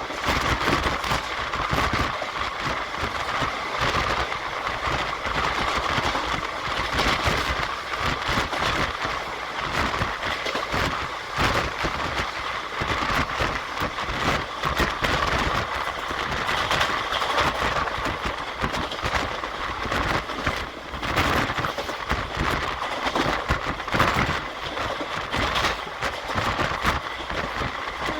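Indian Railways passenger express running at speed, heard from a window seat inside the coach: a steady rumble with a constant rattle and clatter of wheels on the track.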